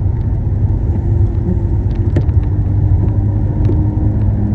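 Steady in-cabin road rumble of a car cruising on the highway, with a faint engine hum that drops to a lower pitch near the end.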